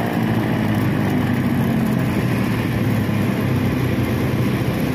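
An ATV engine running steadily while the ATV is ridden along.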